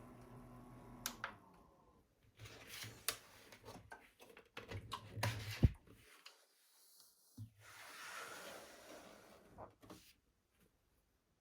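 Scattered clicks and knocks of a small plastic mini fan humidifier being handled. The loudest is a sharp click a little past halfway, over a faint hum that drops out partway through.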